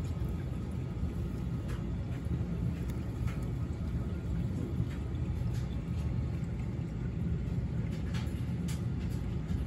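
A steady low rumble, with a few faint light ticks and rustles from hands moving through the terrarium's soil and leaf litter.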